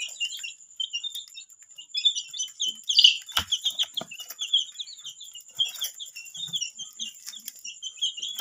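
A group of baby chicks peeping continuously in many short, high chirps while they feed, with a few sharp clicks among them, the loudest about three and a half seconds in.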